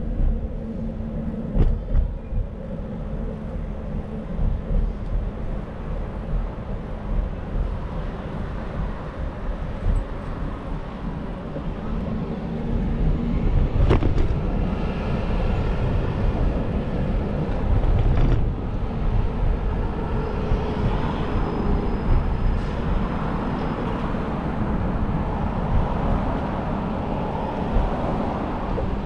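City street traffic: a steady rumble of passing vehicles, with a few sharp knocks.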